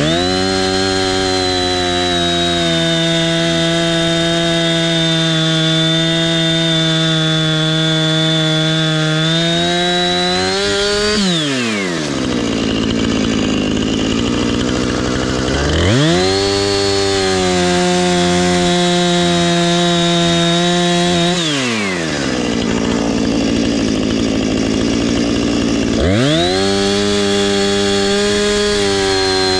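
Husqvarna two-stroke chainsaw held at full throttle while cutting. Its pitch sags a little under load and climbs as the chain frees. It drops to idle about eleven seconds in, revs up again a few seconds later, idles again around twenty-two seconds, and goes back to full throttle near the end.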